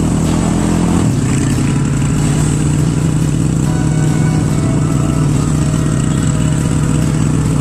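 A tricycle's motorcycle engine running steadily under way, heard from the passenger sidecar.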